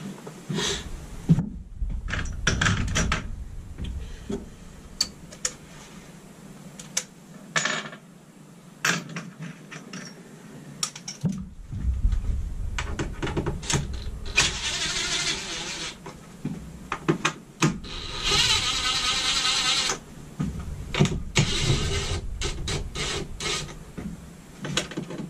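A cordless power driver running in two steady bursts of about two seconds each, about halfway through, loosening the bolts that hold a rooftop air conditioner to a camper roof. Sharp clicks and knocks of the tool and hardware being handled come in between.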